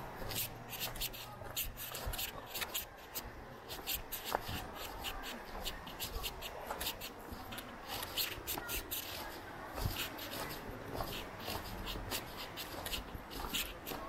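Footsteps and rustling while walking: a run of short, irregular scratchy crunches, several a second.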